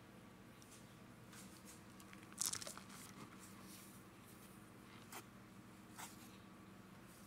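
Packed cornstarch being crushed and crumbled into powder: soft, faint crunches. The loudest crunch comes about two and a half seconds in, and two shorter ones come near the end.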